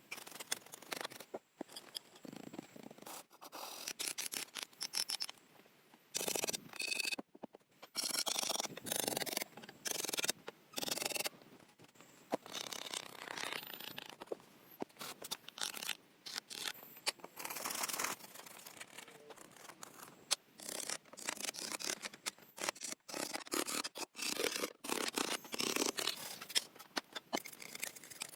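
Close scraping, rubbing and snipping sounds of hands-on building work. They come in short bursts that start and stop abruptly, many times over.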